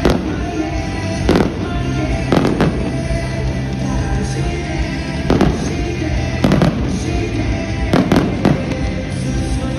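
Aerial firework shells bursting with about ten sharp bangs, several coming in quick pairs, over music that plays throughout.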